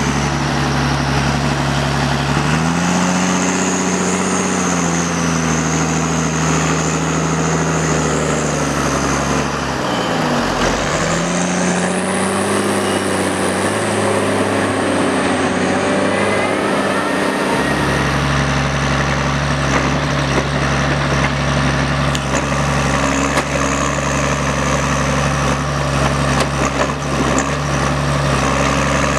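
John Deere 1110D forwarder's six-cylinder diesel engine running as the loaded machine drives and works its crane. The engine speed shifts up and down several times, with a sharp dip and recovery about ten seconds in.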